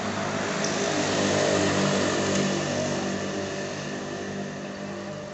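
Motor vehicle engine hum from road traffic passing by. It grows louder to a peak about one and a half to two seconds in, then fades.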